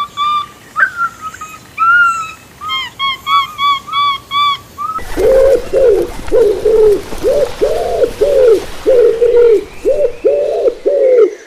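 A bird's clear whistled notes, repeated several times a second. About five seconds in, the recording switches abruptly to a lower, arched call repeated about twice a second over a background hiss.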